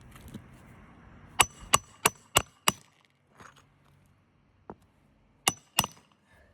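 Hammer driving a roofing nail into a composition shingle: five sharp strikes in quick succession, about three a second, then two more a few seconds later.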